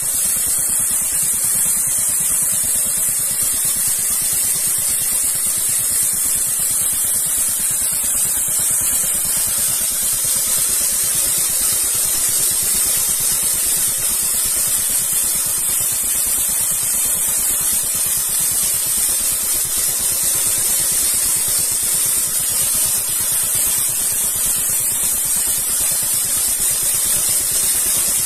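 Petrol-engined weed brush machine running steadily, its spinning brush scraping along concrete paving stones to clear weeds from the joints. The engine drone sits under a constant loud hiss from the brush on the stone.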